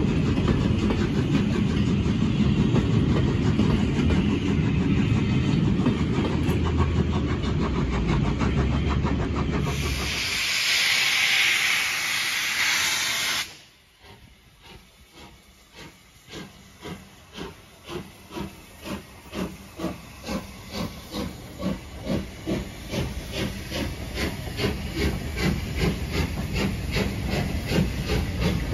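LMS Jubilee class 4-6-0 steam locomotive 45596 Bahamas and its train. There is first a steady rumble of rolling coaches, then a loud hiss of steam for a few seconds that cuts off suddenly. Then come the engine's exhaust beats, starting slowly and quickening steadily as it pulls away.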